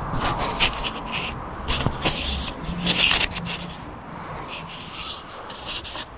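Irregular rustling and scraping, a string of short scratchy bursts with no steady rhythm.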